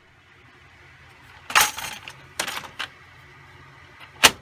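Plastic paper cassette of a laser printer being handled and slid shut: a few hard plastic clatters and knocks, then a sharp snap about four seconds in as it latches home.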